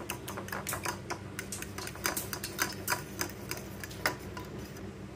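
A metal fork beating eggs in a ceramic bowl: rapid clicks of the fork striking the bowl, several a second, thinning out after about three seconds.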